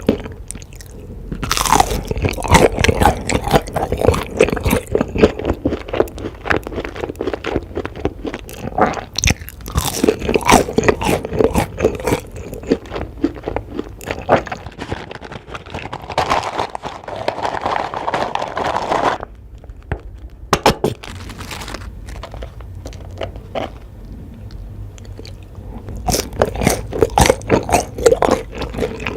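Close-miked eating ASMR: crunchy bites and chewing of fried fast food, in rapid dense crunches. The crunching eases into a quieter stretch past the middle, then comes back loud near the end.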